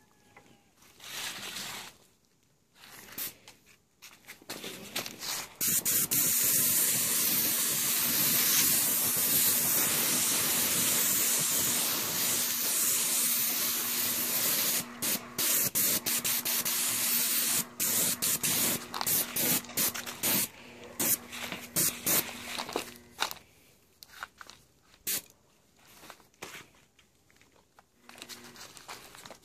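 Hose-fed lacquer spray gun hissing as crackle lacquer goes onto a cabinet door: a few short blasts, then one long continuous spray of about twelve seconds, then a run of short on-off bursts. A faint steady hum runs underneath while the gun sprays.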